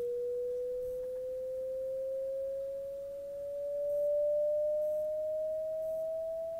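Pure sine test tone from a loudspeaker, gliding slowly upward in pitch: part of a frequency sweep across the range of human hearing, used as an audio test signal.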